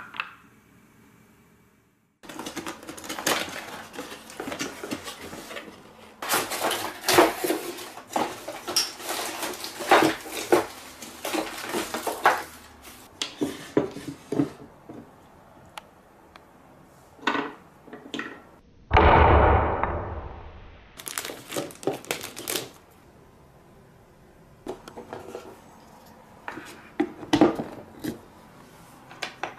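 Wooden and plastic marble-run pieces knocking and clacking as they are handled and fitted together, in irregular clusters of small clicks. A loud rushing noise about two-thirds in.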